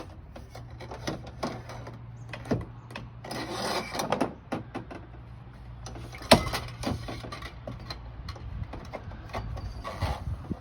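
Handling noises: scattered knocks, rubs and clatter, with a rubbing stretch a few seconds in and one sharp knock about six seconds in, over a faint steady low hum.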